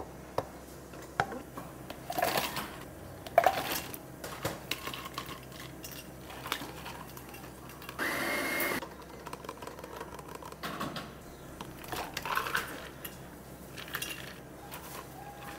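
Ice cubes scooped and clattering into plastic cups, loudest about three and a half seconds in. About halfway through, milk is poured into a plastic cup in one steady pour of under a second, followed by more ice clinking in.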